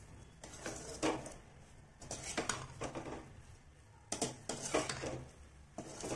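A metal ladle scrapes and knocks against a metal kadai as a thick, dry masala and pieces of poached mackerel are stirred together lightly. There is a stroke every second or so.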